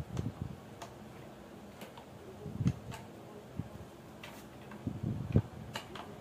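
Hand screwdriver turning a screw into a baby rocker's metal tube frame: irregular small clicks and ticks, with a few soft knocks of the frame, the loudest about two and a half seconds in and again about five seconds in.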